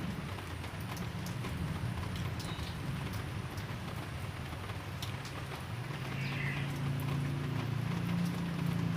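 Light drizzle falling, with scattered drips, and a bird giving short chirps about two and a half and six and a half seconds in. A low steady hum runs underneath and grows stronger after about six seconds.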